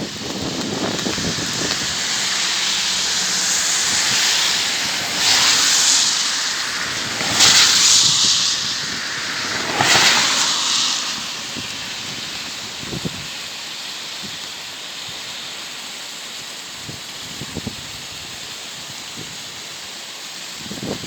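An ETR521 'Rock' electric regional train passing quickly, a rushing noise that swells in several surges over the first ten seconds, loudest about eight seconds in, then fades to a steady hiss.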